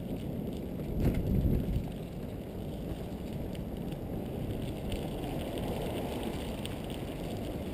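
Bicycle riding along a paved path: a steady rumble of tyres with wind noise on the GoPro's microphone and faint scattered clicks, and a louder rumble about a second in.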